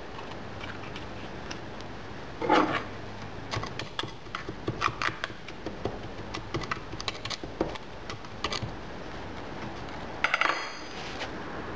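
Green sand being packed into a small sheet-metal wedge test mould: handfuls of damp sand dropped in and a rod tamping it down, giving irregular ticks, scrapes and clinks against the metal box. Louder rustling bursts come about two and a half seconds in and again near the end, over a faint steady low hum.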